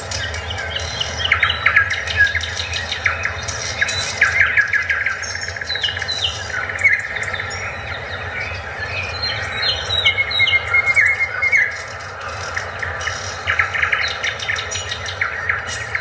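Several birds chirping and trilling in a busy chorus, over a steady low rumble.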